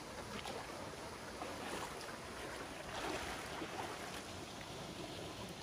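Steady rushing of running stream water, with a few brief rustles and scuffs of movement among the rocks.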